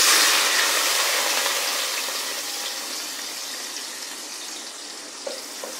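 Chopped onion dropped into hot sunflower oil in a metal pot: a sudden loud sizzle that slowly dies down as the onion fries.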